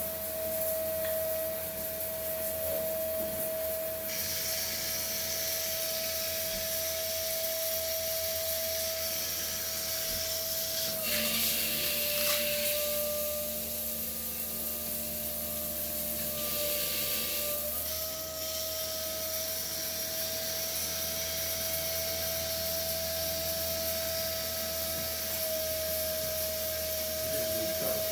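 Built-in DC pump of a Panasonic DH-3NDP1MS water heater running with a steady whine. Its pitch drops slightly for several seconds in the middle, then returns. A steady high hiss joins about four seconds in.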